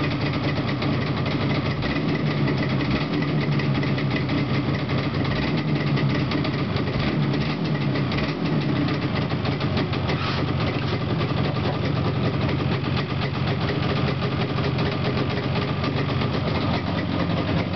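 Yamaha RD250LC's two-stroke parallel-twin engine running steadily at idle, just started after two months standing unused.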